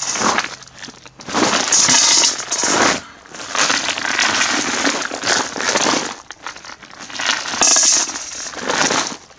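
Russian coins of 1 to 10 rubles pouring from a plastic container into a galvanized steel bucket, clattering and clinking metal on metal. The pour comes in several bursts a second or two long with short pauses between.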